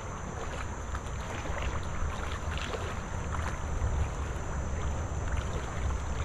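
Wind rumbling on the microphone over light splashing of legs wading through shallow river water.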